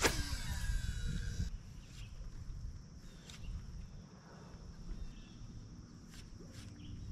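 A cast with a baitcasting rod: a swish, then the reel's spool whirring and falling in pitch as line pays out for about a second and a half before it stops. Low wind rumble follows, with a few faint clicks as the lure is worked back.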